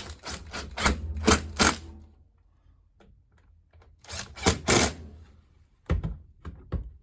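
Screws being driven into a washing machine's door hinge: two runs of rapid clicking and clatter, one at the start and one about four seconds in, with a few single clicks near the end.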